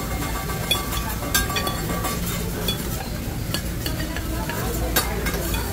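Food sizzling on a hibachi flat-top griddle, with a few sharp clicks of cooking utensils.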